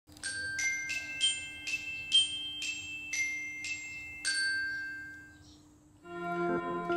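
Background music: a slow melody of about nine single struck, ringing bell-like notes that fade away about five seconds in. A fuller piece with held notes starts near the end.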